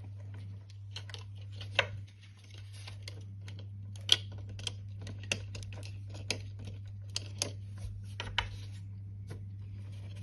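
Irregular small clicks and taps of electrical wires and a dimmer switch being handled as the cable ends are worked into the switch's terminals.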